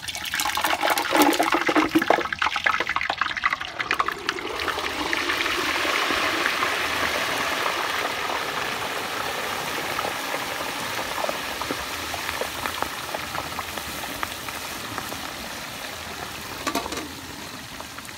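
Whole turkey being lowered into a pot of hot frying oil. The oil sizzles and bubbles hard, with dense crackling for the first few seconds, then settles into a steady sizzle that slowly eases.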